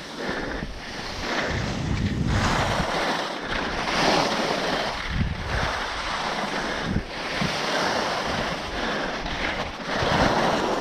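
Skis hissing and scraping over soft, heavy spring snow, the noise swelling and fading with each turn, with wind buffeting the helmet camera's microphone.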